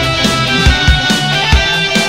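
Rock background music: guitar over a steady drum beat.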